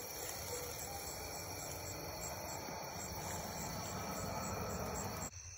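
Night chorus of crickets and other insects: a steady high-pitched trilling over a low background hiss. It cuts off abruptly near the end.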